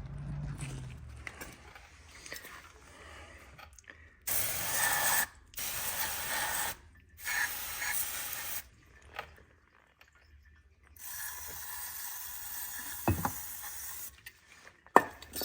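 Cleaning spray hissing in four bursts, the last about three seconds long, as the hydraulic valve parts are cleaned out. Light scraping and clicking of small metal parts come before it, and there are a couple of sharp knocks near the end.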